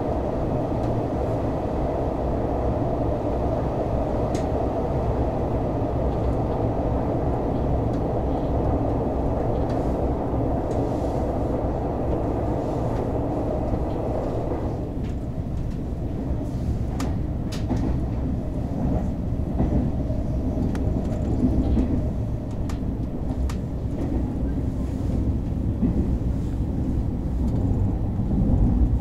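KTX high-speed train running, its steady rumble heard from inside the carriage through the window glass. About halfway through, the higher part of the noise drops away suddenly, leaving a lower rumble with scattered clicks.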